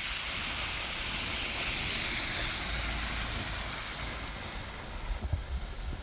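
A car driving through deep flood water on a road, its tyres throwing up a loud rushing spray over a low rumble, fading away after about three seconds. Wind buffets the microphone near the end.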